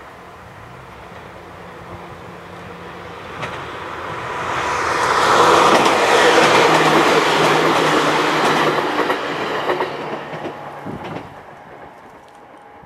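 Chichibu Railway electric commuter train passing close by: wheels rumbling and clattering over the rail joints, rising from about four seconds in, loudest for a few seconds, then fading as it goes away.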